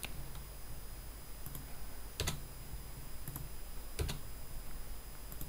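A few separate, faint clicks of a computer keyboard and mouse as single keys are pressed, the two sharpest a little after two seconds and about four seconds in.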